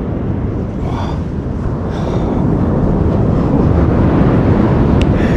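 Wind buffeting the microphone: a loud, steady low rumble with the wash of beach surf under it, and a few faint rustles and clicks.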